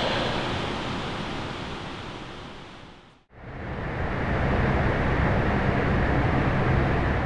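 Steady room noise, an even hiss with a low hum underneath. It fades away about three seconds in, then fades back up and holds steady.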